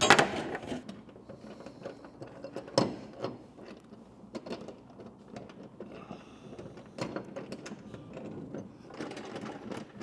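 Metal mounting hardware of a rooftop tent being worked on the vehicle's roof rack: light mechanical rattling and clicking as bolts and wing nuts on the aluminium mounting plates are handled and tightened. Two sharp knocks stand out, one right at the start and one about three seconds in.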